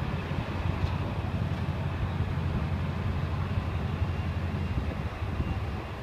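Steady low rumble of a restaurant's ceiling-cassette air conditioners and ceiling fans, with a faint thin high whine coming in about halfway through.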